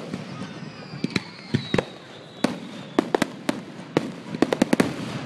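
Aerial fireworks bursting: irregular sharp bangs and crackles, with a quick run of bangs near the end. A high whistle slides slowly down in pitch through the first half.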